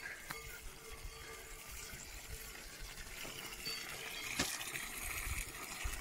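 Water pouring from a metal tap into a wooden log trough, a steady splashing that grows louder about halfway through. A single brief knock about four seconds in.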